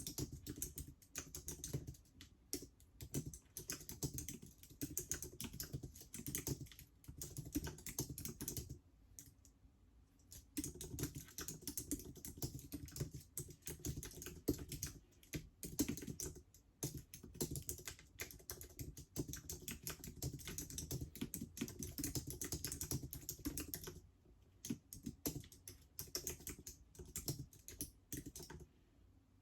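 Fast typing on a Mac computer keyboard with long curved nails: a quick, uneven run of key clicks. The clicks pause briefly about nine seconds in and thin out near the end.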